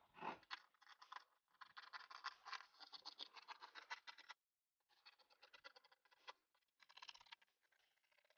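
Scissors cutting through fabric: faint, rapid crisp snipping and rustling, which stops briefly about four seconds in and then carries on.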